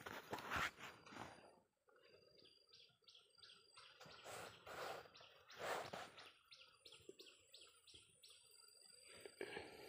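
Faint bird chirping: two runs of short, evenly repeated high notes, about three a second, over a faint steady high tone. Louder rustling of movement and handling close by comes near the start, twice in the middle, and again near the end.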